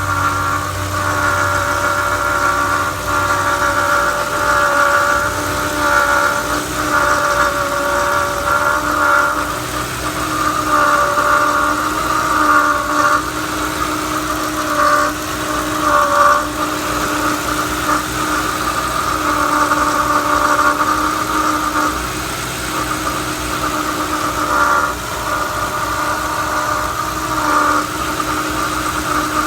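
Ford 4.6L V8 idling, with a steady, slightly wavering high whine from a failing water pump whose failure is imminent.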